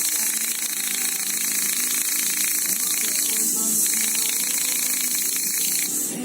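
A steady, loud hissing spray.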